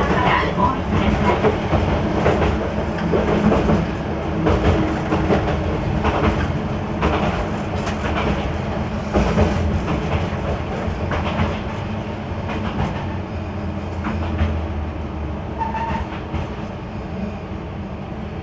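One-car diesel railcar running on jointed single track, heard from the cab: a steady engine and running rumble, with the wheels clacking over rail joints and points. It grows quieter as the train slows into a station.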